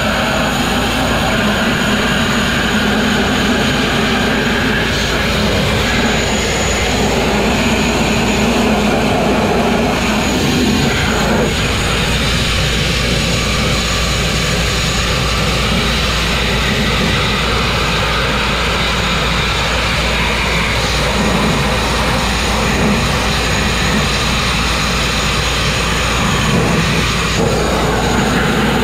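Grit blasting: the steady, loud roar and hiss of compressed air and abrasive grit leaving a blast nozzle, stripping rust and paint. The tone shifts slightly about eleven seconds in and again near the end.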